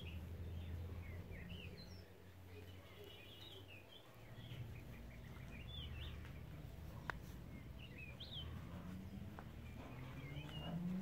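Small birds chirping now and then, short scattered calls over a steady low background hum, with one sharp click about seven seconds in.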